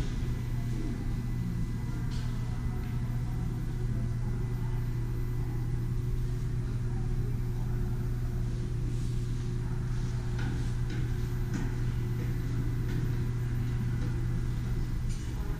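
A steady low machinery hum, with a few faint scattered clicks and knocks.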